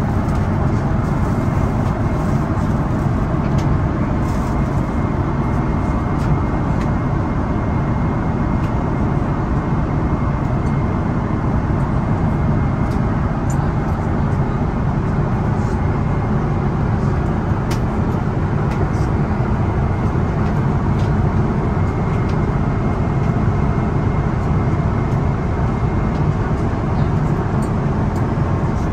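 Steady roar inside the cabin of a Boeing 777-300ER airliner in flight, the mix of engine and airflow noise, with a faint high steady whine.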